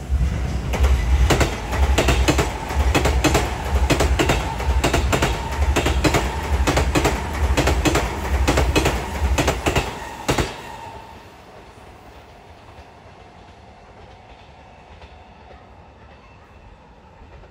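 Sotetsu Main Line electric commuter train passing close by, its wheels clacking in a steady rhythm over the rail joints under a deep rumble and a steady hum. The sound cuts off sharply about ten seconds in as the last car goes by, leaving only faint background noise.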